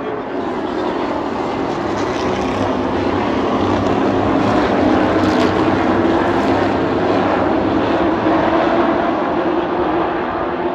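Pack of short-track race trucks running at racing speed. The engines grow louder as the field passes and ease off again near the end.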